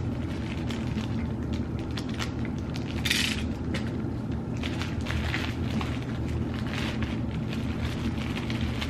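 Plastic courier packet being cut and worked open with a utility knife: crinkling and crackling of the plastic, with one short ripping rasp about three seconds in.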